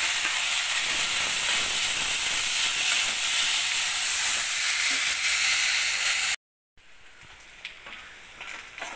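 Grated radish sizzling loudly in hot sesame oil in a kadai, a steady hiss. It cuts off suddenly about six seconds in, and after that the frying is quieter, with clicks and scrapes of a spatula stirring near the end.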